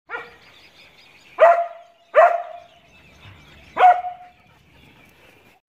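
A dog barking four times: a softer bark at the start, then three loud barks, each trailing off in a short steady tone.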